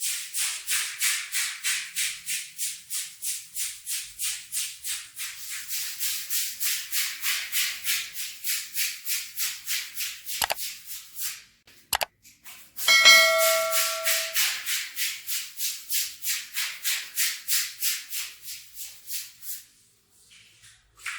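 Stiff brush scrubbing a wet rug in quick, even strokes, about three a second, with a brief pause broken by two sharp clicks. A short squeak sounds as the scrubbing resumes.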